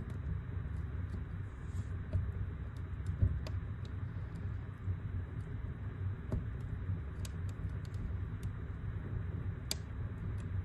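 Wood fire burning in a fireplace: irregular crackles and pops from the burning logs over a low steady rumble of the flames, with one sharper pop near the end.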